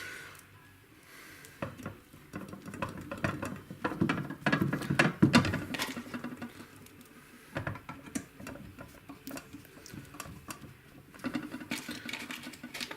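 Handling noise as the pickup winder's parts are moved and worked on: irregular small clicks, taps and scraping rustles, busiest in the middle and again near the end.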